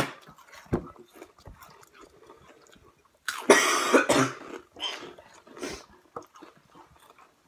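A boy coughing: a harsh fit of about a second starting a little over three seconds in, with faint small clicks around it.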